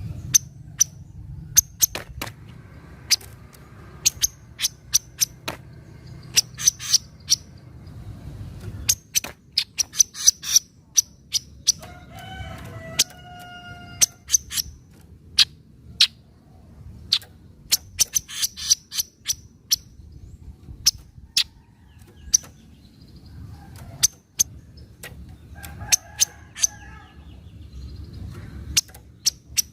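Kaso-kaso bird giving its sharp chattering 'nyecret' call: short, high staccato chips in quick, irregular runs. This is the call used as a lure recording to set off caged kaso-kaso birds. About halfway through, a lower, drawn-out call is heard for a couple of seconds.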